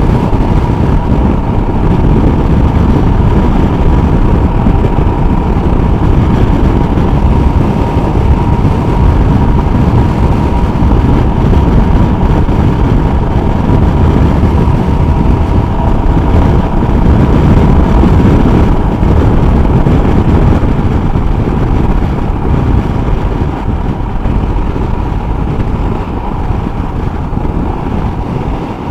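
Motorcycle cruising at steady speed, heard from the rider's microphone: wind rushing over the mic over the engine's drone, with a steady high tone held throughout. It gets a little quieter over the last few seconds.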